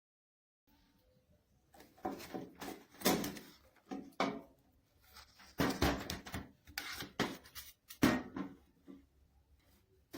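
Irregular knocks and clatter of hard objects being handled, starting about a second in.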